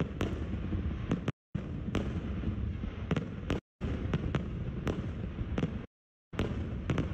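Aerial fireworks display: a steady low rumble of shell bursts with many sharp cracks on top. The audio drops out completely for a moment three times, about a second and a half in, at three and a half seconds and near six seconds.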